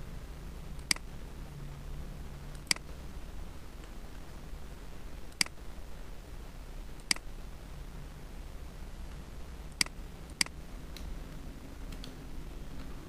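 Computer mouse clicking six times at uneven intervals, single sharp clicks with a pair close together near the end, over a steady low hum.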